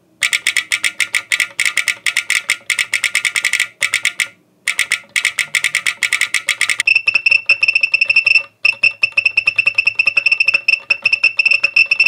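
Rapid typing on a Vintage 60s mechanical keyboard with Vertex V1 switches, each keystroke setting off a buzzing tone from the board's built-in solenoid/buzzer feature, so the clatter rings with pitch. About seven seconds in, the tone shifts higher and steadier, with brief pauses in the typing.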